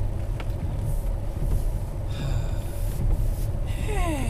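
Car cabin noise: the low, steady rumble of a car driving, heard from inside. Near the end comes a short falling squeal-like tone.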